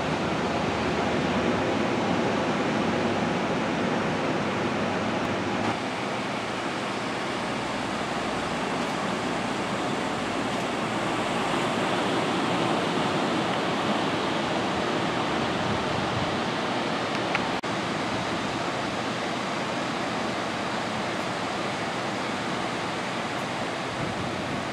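Small ocean waves, about 2 to 4 feet, breaking on a sandy beach: a steady, even wash of surf noise.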